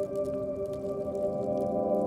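Slow ambient music: long, sustained synth-pad chords, with faint crackling from a wood fire underneath.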